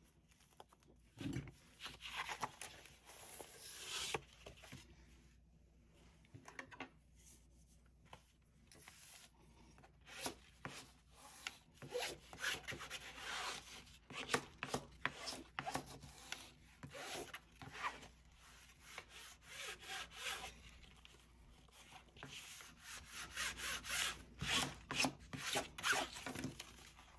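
Hands and a bone folder rubbing and smoothing linen bookcloth down over glued book board: many short scraping strokes, thickest in the second half.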